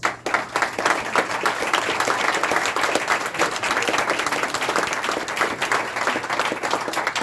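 A small group of people applauding: dense hand clapping that starts suddenly and keeps up steadily.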